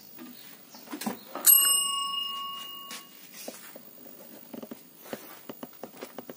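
A single bright metallic ring, like a small bell being struck, about a second and a half in, fading away over about a second and a half. Light clicks and knocks of handling surround it.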